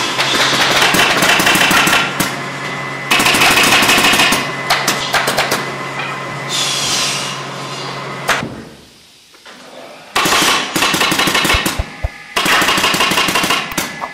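Staple gun firing in rapid runs of sharp clicks, each run lasting a second or two, over a steady low hum that stops a little past halfway, followed by a short quieter lull before the clicking resumes.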